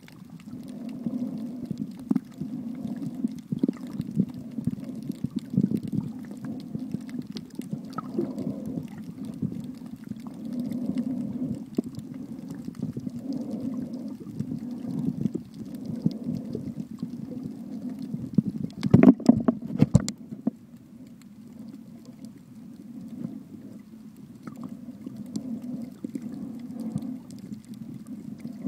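Muffled underwater sound from a submerged camera: a steady low rumble of moving water with slow swells and scattered clicks. About two-thirds of the way through comes a brief louder burst of knocks and sloshing, after which it is quieter.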